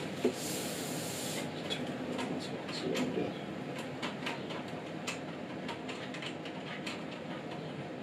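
Handling noise from fitting the Asus VG238 monitor's stand arm into its round base: plastic wrap rustling and sliding, with a run of small clicks and light knocks. A brighter hiss of sliding plastic in the first second and a half.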